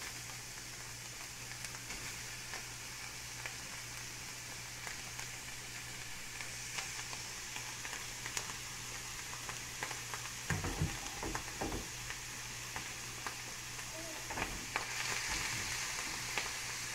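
Crumbled longaniza sausage sizzling in a frying pan with a little oil, the hiss swelling about halfway through and again near the end. From about ten seconds in come a few low knocks as the meat is stirred and the pan handled.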